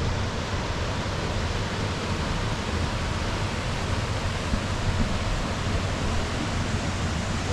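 Steady roar of a tall waterfall, a heavy even rush of falling water with no breaks.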